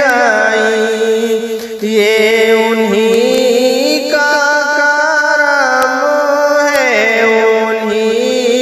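Naat recitation: a solo voice singing long, ornamented held notes of an Urdu devotional poem, with a short breath about a second and a half in.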